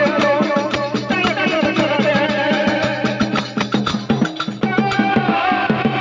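Music with a fast, dense percussion beat under a wandering melody line; the beat thins out briefly a little past the middle, then comes back.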